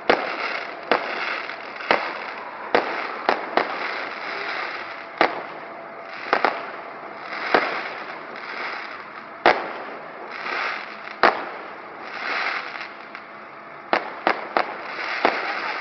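Aerial fireworks display: shells bursting in sharp bangs, roughly one a second, with crackling between them and a quick run of bangs near the end.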